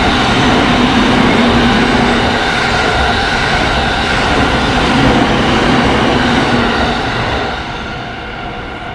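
Train running past, a loud steady rumble of running noise with faint steady humming tones in it, easing off about seven and a half seconds in.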